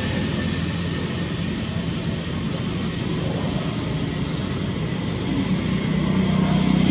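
A steady engine-like rumble with a haze of noise over it, getting a little louder near the end.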